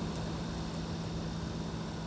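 Steady rain on a light truck camper, an even hiss with a few faint ticks, over a steady low hum.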